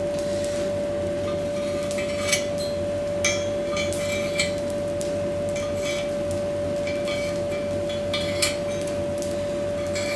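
Engineer's chalk scraping along steel as scroll pieces on a steel jig plate are traced, with a few light metallic clinks of steel on steel. A steady hum sounds underneath.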